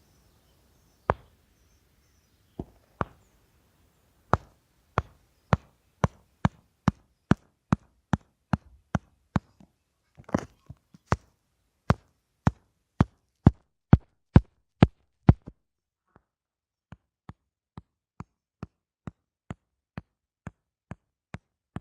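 A series of sharp clicks or knocks: a few scattered ones, then a steady run of about two a second, then fainter and slightly quicker near the end.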